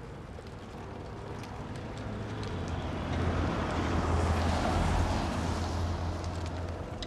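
Rain ambience with scattered small drop ticks under a low rumbling, hissing swell. The swell builds to a peak about four to five seconds in, then eases off.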